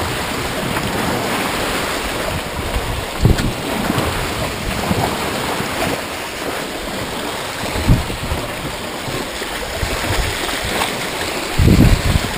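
Steady rush of water along the hull of a Paceship PY 26 sailboat under sail, with wind buffeting the microphone in a few low gusts, the biggest near the end.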